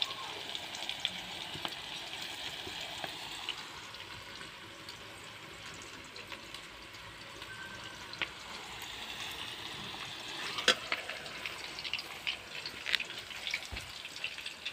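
Sliced onions sizzling as they fry in oil in a metal wok: a steady hiss that eases after a few seconds and then grows again. Sharp clicks and knocks come in the second half, the loudest about two-thirds through.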